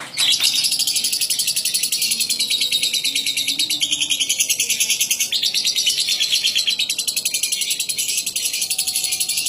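Lovebird singing a long, unbroken, rapid chattering trill that starts abruptly and keeps going at a steady fast pulse.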